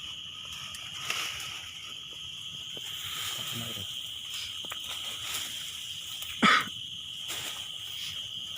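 Steady chirring of insects in the background. About six and a half seconds in comes one brief, sharp, louder noise.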